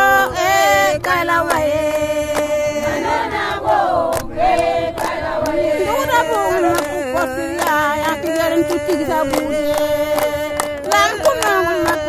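Several voices singing together in a chant-like song, with frequent sharp percussive strikes.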